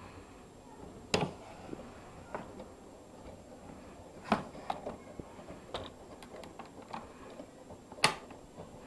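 Sharp clicks and knocks at irregular intervals, with three louder ones about a second in, about four seconds in, and near the end.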